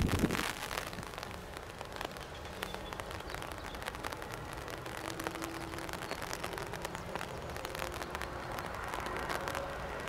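Boeing 787-9 Dreamliner's jet engines after landing, a brief low rumble in the first half second settling to a steady distant jet noise with a faint whine, as the airliner rolls out and turns off the runway.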